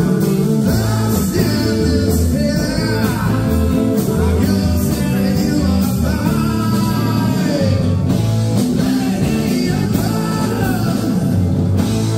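Live rock band playing: a lead vocalist singing over electric guitars and drums, steady and loud throughout.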